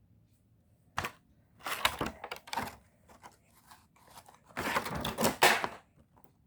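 Toy packaging being torn and crinkled in bursts: a short rip about a second in, a longer stretch of rustling around two seconds in, and the loudest tearing around five seconds in.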